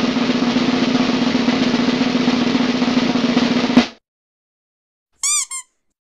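Snare drum roll that ends almost four seconds in with a final hit. Near the end, a rubber duck squeaks twice, each squeak rising and falling in pitch.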